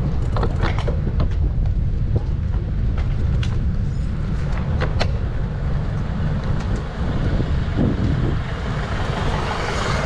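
Wind buffeting the microphone of a bicycle-mounted camera while riding: a steady low rumble with occasional sharp clicks, and a rising hiss near the end.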